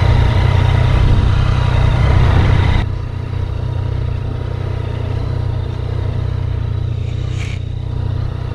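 Motorcycle engines idling in a steady low rumble. A louder noise over the top cuts off suddenly about three seconds in, leaving the idle.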